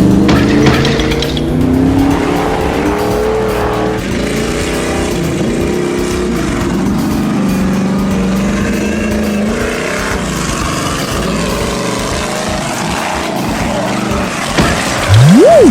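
Toy-vehicle engine sound effects, running and revving with the pitch rising and falling. Near the end comes a quick whistle that sweeps up and straight back down, and the sound gets louder.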